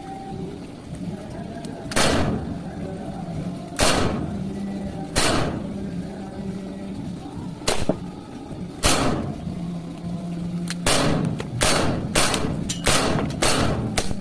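Walther PDP Compact 4 CO2 airsoft pistol being test-fired: about a dozen sharp shots. They come a second or two apart at first, then in quick succession over the last few seconds.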